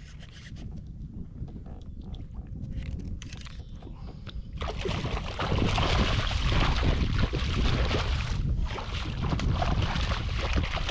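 A hooked redfish thrashing and splashing at the surface right beside a kayak. The splashing starts suddenly and loudly about halfway through and keeps going, after a quieter stretch of water sounds and small clicks.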